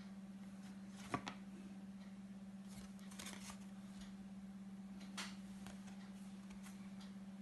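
Quiet room with a steady low hum and a few faint clicks and rustles of a card being handled, the sharpest click about a second in.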